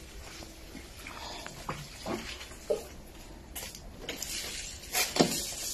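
Water splashing onto plant leaves and soil in a pot, with scattered small knocks and one sharp knock near the end.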